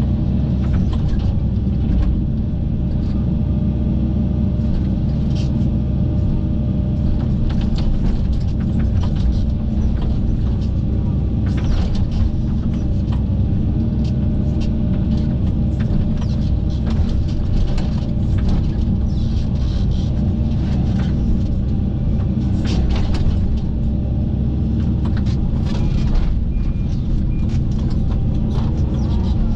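Kobelco SK135SR-7 excavator's diesel engine and hydraulics running under steady load while ripping at a tree stump, a constant low rumble. Irregular short knocks and clatters sound over it.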